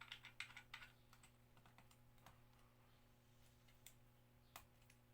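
Faint small plastic clicks and taps of tripod parts being handled and tightened: a quick run of clicks in the first second, then a few single clicks.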